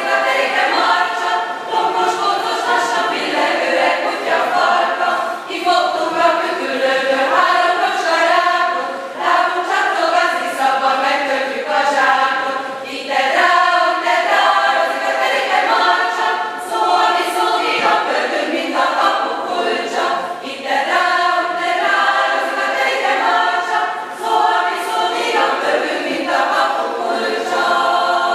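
Women's choir singing a cappella, in long held notes.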